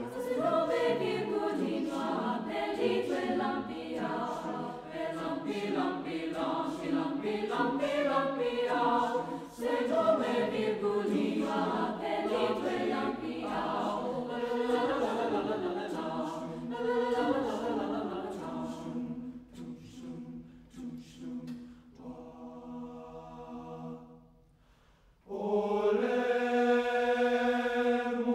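Mixed choir singing a Brazilian folk-song arrangement in quick, rhythmic syllables. About two-thirds through the texture thins and fades, breaks off for a moment, and then the full choir comes back on a held chord.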